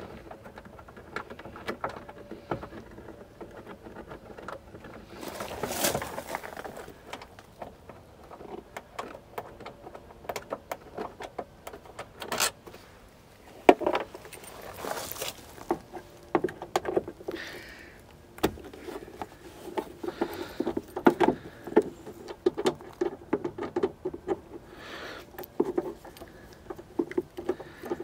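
Bolts being undone by hand with a bike tool kit's hex key: light metallic clicks, taps and scrapes as the key works in the bolt heads, turning into fairly regular small ticks in the second half, with clothing rustling now and then.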